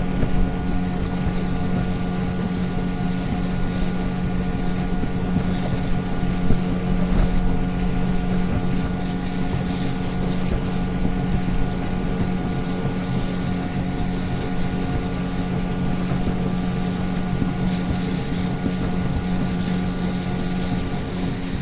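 Motorboat engine running steadily under way, a constant hum with the rush of water and wind over it that swells briefly a few times.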